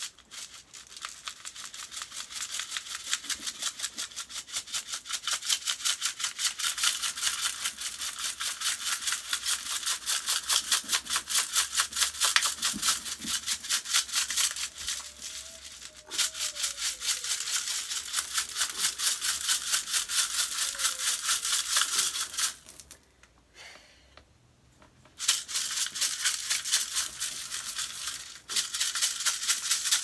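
Dry granular debris being shaken out of a container onto carpet: a fast, even rattle that stops briefly about halfway through and again for a couple of seconds near the end.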